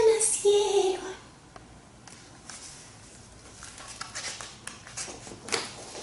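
A woman's voice briefly in the first second, then a quiet room with a few soft rustles and taps as a picture book's pages are handled and turned.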